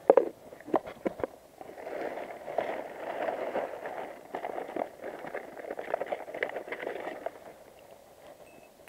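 A few sharp knocks, then a plastic bag being handled and opened, crinkling and rustling for several seconds before it quietens near the end.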